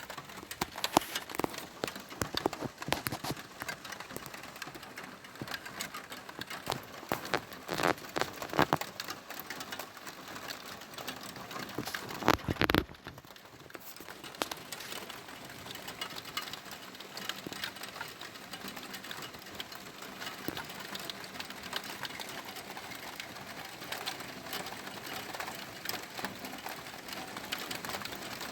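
Rain during a thunderstorm, with many drops pattering and ticking close by, most densely in the first ten seconds. About twelve and a half seconds in, a brief louder burst of noise stands out.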